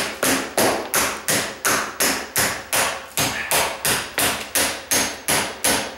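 Hammer tapping a stiff putty knife in a steady, even rhythm of about three sharp strikes a second. The knife is being driven under the rim of a cast iron kitchen sink to break it loose from the countertop.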